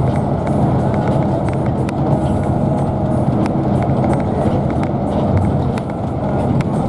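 Car driving at speed: a steady engine and tyre rumble, with scattered faint clicks.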